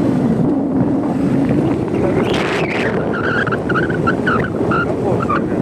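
Motorcycle engine running steadily under way, with wind noise on the microphone. A little over two seconds in there is a brief rising-and-falling whoosh.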